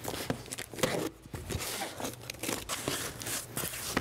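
Packing tape being peeled and torn off a cardboard box, then the box flaps pulled open: irregular tearing, scraping and crinkling of tape and cardboard.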